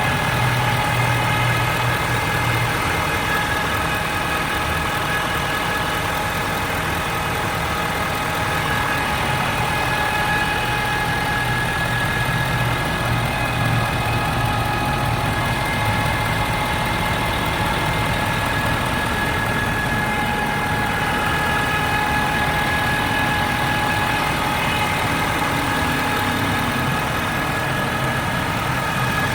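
2013 Ford F-350's 6.7-litre Power Stroke V8 diesel running at idle with a loud, steady high-pitched whine over the engine note. The whine comes only when the engine is warm, and its cause has not been found.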